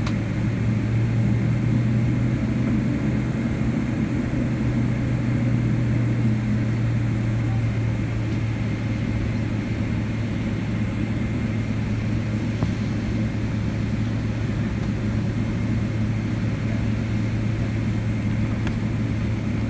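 Boeing 777-200LR's GE90 turbofan engines running at idle during taxi, a steady low hum heard from inside the cabin, with a faint steady high whine over it.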